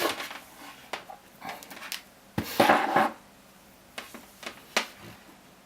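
Sharp clicks and knocks of 18650 lithium-ion cells being handled and tested on a bench, with a louder rattling clatter about two and a half seconds in and three sharp clicks near the end.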